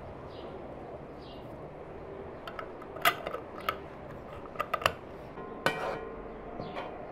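Metal twist-off lid being screwed down onto a glass jar of tomato paste: a run of sharp clicks and scrapes of metal on glass from about two and a half to five seconds in, then one ringing clink near six seconds.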